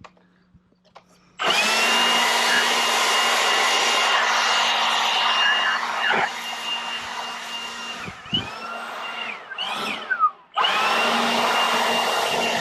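Milwaukee cordless leaf blower running at full power with a steady high whine over a rush of air. It runs for about six seconds and winds down, gives a brief blip, then runs again for about three seconds.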